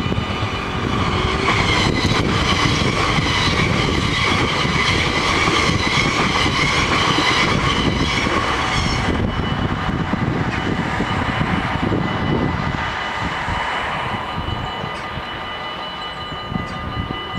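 Level-crossing bells ringing steadily while an NS electric passenger train passes, its rumble and wheel noise loudest through the first half and dying away after about 13 seconds.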